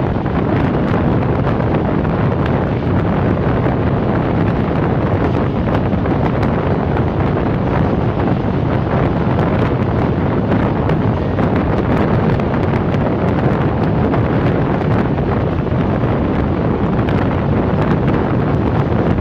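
Wind buffeting the microphone at the open window of a moving passenger train, over the train's steady running rumble on the rails. It is loud and unbroken throughout.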